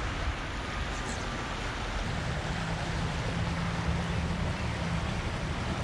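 Steady rush of flowing creek water with wind noise on the microphone, and a low hum for a few seconds in the middle.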